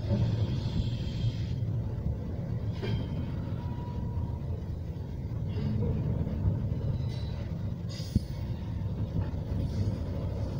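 Double-stack intermodal well cars rolling past: a steady low rumble of wheels on rail, with a few brief faint squeals and a single sharp click about eight seconds in.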